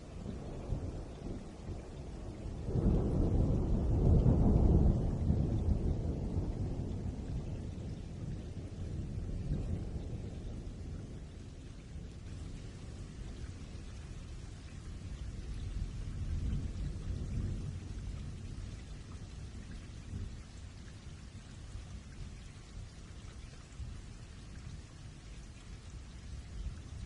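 Steady rain falling, with a roll of thunder that builds about three seconds in and fades away over several seconds, and a fainter rumble of thunder later on.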